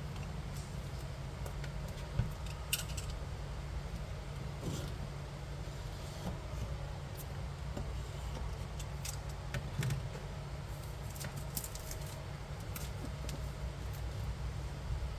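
Scattered light clicks and rustles of a smartwatch box and its packaging being handled, over a steady low hum.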